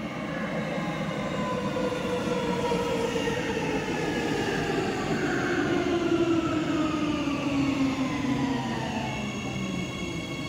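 Metro train pulling into an underground station and braking to a stop, with several electric motor whine tones falling steadily in pitch as it slows, over the rumble of its wheels. Near the end, as it stands, a set of steady high tones sets in.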